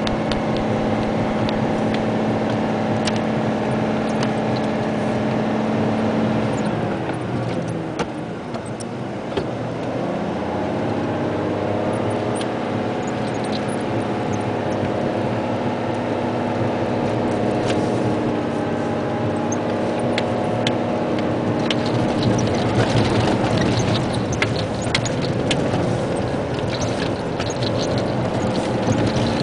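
Isuzu Giga dump truck's 380 PS diesel engine pulling steadily, heard from inside the cab. About seven seconds in, the engine note drops away, then climbs back up from about ten seconds. In the last several seconds, loose gravel ticks and rattles against the truck.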